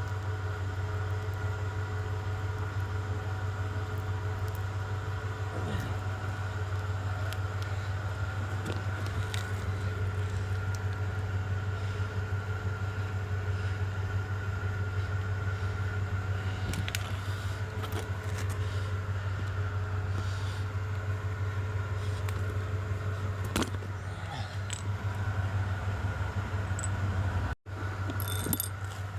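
A motor runs steadily with a constant low drone, with scattered light clicks and taps over it.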